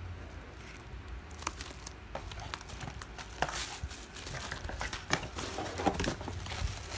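Plastic bubble-wrap packaging crinkling and crackling as it is handled, in irregular bursts, with light knocks of a cardboard box being moved; busier and louder in the second half.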